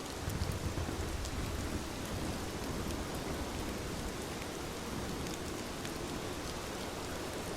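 Steady heavy rain falling, with scattered drops ticking through it, and a low rumble of distant thunder in the first couple of seconds.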